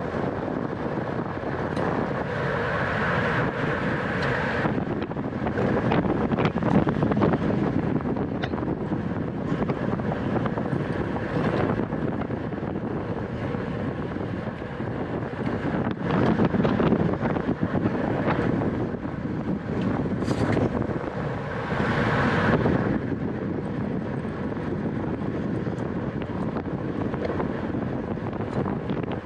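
Wind rushing over the microphone of a camera riding on a racing bicycle at speed, a steady noisy rush with road and tyre noise and scattered short clicks.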